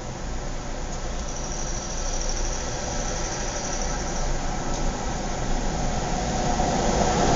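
Suburban outdoor ambience with the steady hum of motor traffic, a vehicle's engine growing gradually louder toward the end as it approaches. A faint high-pitched tone sounds for a few seconds about a second in.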